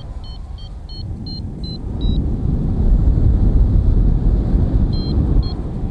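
Wind rushing over the microphone of a paraglider in flight, a heavy low rumble that swells in the middle, with the flight variometer beeping in short high tones: a quick run of about seven beeps in the first two seconds and two more near the end, the beeps signalling rising air.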